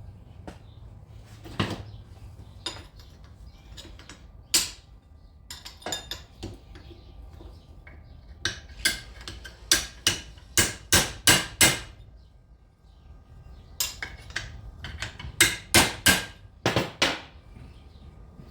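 Hammer blows on a metal piece of an old dog kennel as it is bent into a door handle. A few single strikes come first, then two quick runs of sharp blows, about two to three a second: one about eight seconds in and a shorter one about fifteen seconds in.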